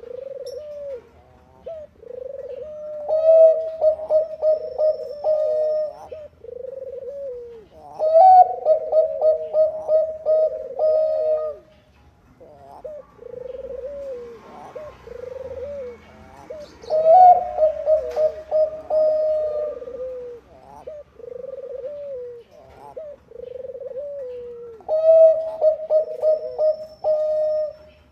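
Zebra doves of the Thai-bred 'Bangkok' strain cooing. Soft falling coos are broken four times by a louder song phrase, a quick run of staccato notes ending in a longer held coo.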